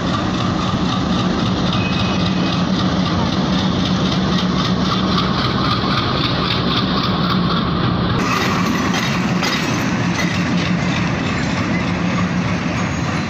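Bangladesh Railway BED-30 broad-gauge diesel-electric locomotive running as it moves along the yard tracks: its diesel engine gives a steady low hum, with rail and wheel noise over it.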